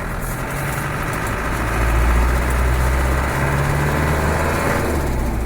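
Land Rover Defender 110's 300Tdi four-cylinder turbodiesel running on the move, heard from inside the cab as a steady low drone. It gets a little louder about two seconds in.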